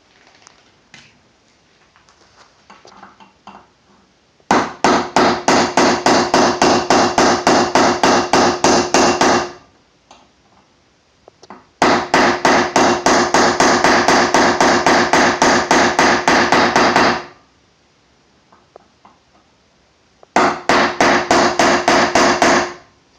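Small hammer tapping quickly and evenly on a punch, driving the trigger guard roll pin into the ears of an AR-15 lower receiver. Three runs of taps, the first two about five seconds each and the last shorter, each carrying a steady metallic ring.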